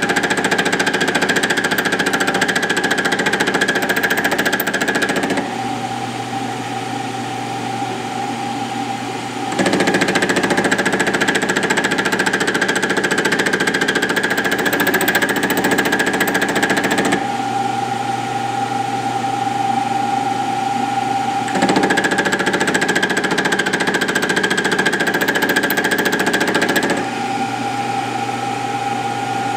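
Milling machine running a boring head as a fly cutter, taking an interrupted cut into a steel drill-rod cam blank. There are three stretches of louder cutting noise with a high steady tone, each about five to seven seconds long. Between them are quieter spells of the spindle and motor running steadily.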